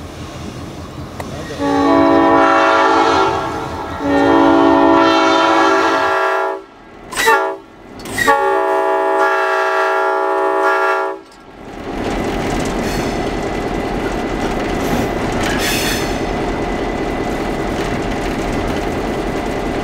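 Nathan P5 five-chime air horn on EMD GP38-3 locomotive #100 blowing a chord in two long blasts, one short and one long, the long-long-short-long pattern of a grade-crossing signal. After that comes the locomotive's steady diesel engine noise.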